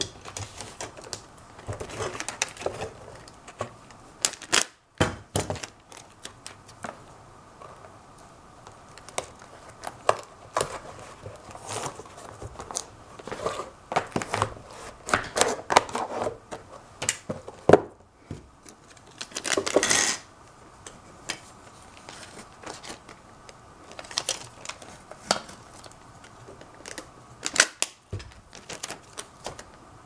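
Clear packing tape being handled and smoothed down by hand over painted boxes: scattered clicks, taps and rubbing of changing loudness, with a longer rasp about two-thirds of the way through.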